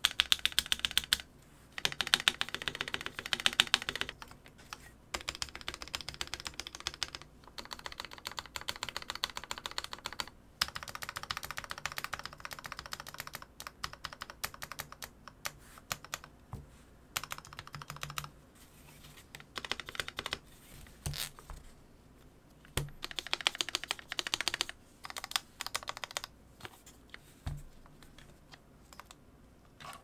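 Stabilized keycaps (spacebar and modifiers) on a Space65 custom mechanical keyboard being pressed rapidly and repeatedly, clacking in quick runs separated by short pauses: a test of the freshly reworked stabilizers.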